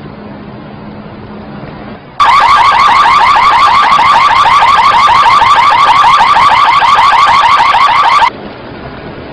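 Anti-theft alarm going off about two seconds in: a loud, fast electronic whoop of rising sweeps, about six a second, that runs for about six seconds and cuts off suddenly. A steady background noise lies under it and remains after it stops.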